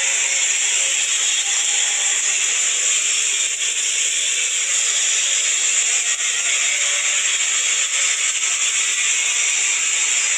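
Electric arc welding in progress: the arc gives a steady, unbroken crackling hiss.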